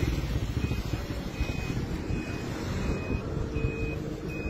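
An electronic beeper sounding short, high, even beeps about every three-quarters of a second, six in all, over a low rumble of street and vehicle noise.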